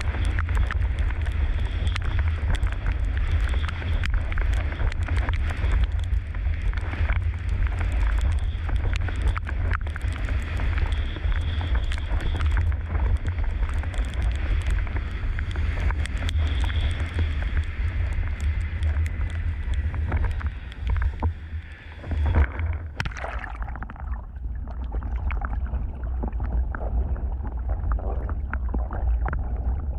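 Windsurf board planing fast over choppy water: a steady rush of spray and hull slap under heavy wind buffeting on the microphone. About two-thirds through, a sudden splash as the rig goes down, after which the sound turns dull and muffled with the camera under water.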